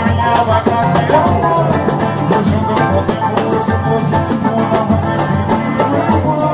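A band playing an instrumental passage: drums and hand percussion keeping a steady, fast beat under guitar and other pitched instruments.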